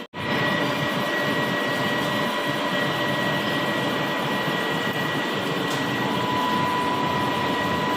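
CNC lathe running as it turns a pipe: a steady machine noise with a constant high whine, cutting out briefly right at the start.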